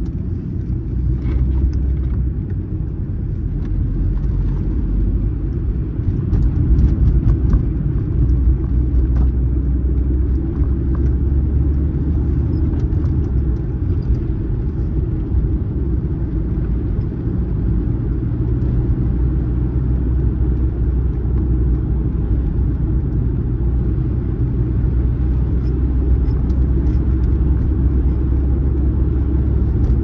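Steady low rumble of a moving vehicle, with no clear changes throughout.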